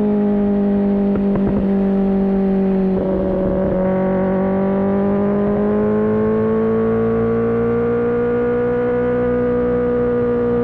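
Kawasaki ZX-10R inline-four engine running at steady, fairly high revs. Its pitch dips slightly about three seconds in, then climbs slowly and eases back a little near the end.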